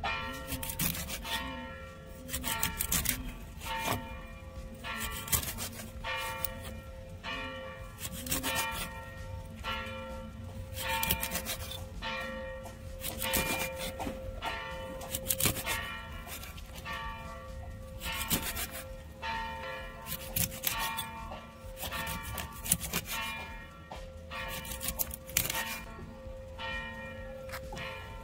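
A large steel knife chopping a fish into steaks on a wooden board: a steady run of sharp strokes, roughly one to two a second, with the blade ringing briefly after each.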